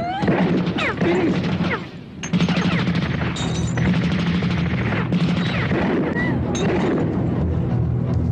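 Action-scene sound mix: rapid gunfire and crashing impacts over a steady, low background music score, with a brief lull about two seconds in.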